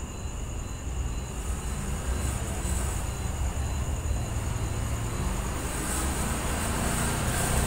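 Steady low rumble under an even hiss, slowly growing a little louder toward the end, like vehicle noise.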